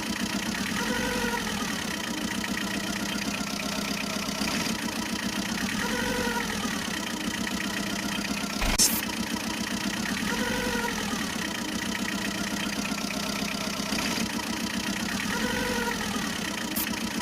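Engine idling sound: a steady low drone with an even throb. A short rising-and-falling tone repeats about every four and a half seconds, and there is a single sharp click about nine seconds in.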